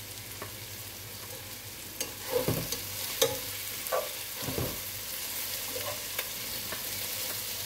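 Sliced onions frying in oil in a nonstick pot, being sautéed toward brown: a steady sizzle, with the scrape and knock of a spatula stirring against the pot several times from about two seconds in, when the sizzle also grows louder.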